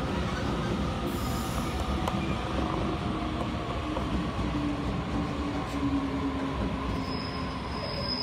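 Electric passenger train running into a station platform, its rumble steady, with thin squealing tones from the wheels and brakes that slowly fall in pitch as it slows.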